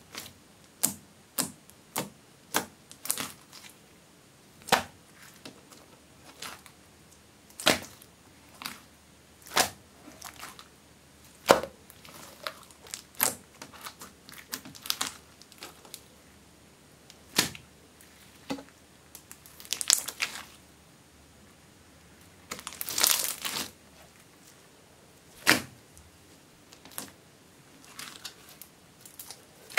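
Hands squishing, pressing and stretching clear slime, giving a string of sharp, separate wet pops and clicks as trapped air pockets burst. A longer crackling run comes about 23 seconds in.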